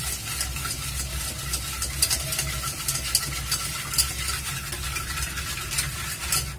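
Wire whisk beating oil and powdered sugar in a stainless steel bowl: a steady scraping of the batter with many light clicks of the wires against the metal.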